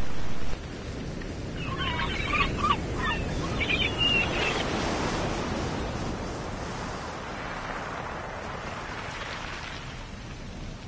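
Surf washing in on a sandy beach in slow swells, with a few short bird calls in the first seconds. A louder sound cuts off abruptly about half a second in.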